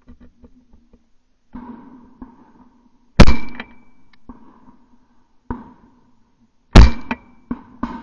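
A series of sharp knocks: two much louder impacts about three and a half seconds apart, each with a brief ringing tone, and several weaker knocks around them.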